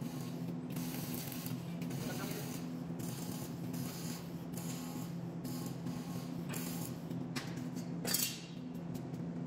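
Gas-shielded wire-feed (MIG/CO2) welding on a steel square-tube column: the arc crackles and hisses in short runs with brief breaks, over a steady low hum. A short, louder noise comes about eight seconds in, after the welding has stopped.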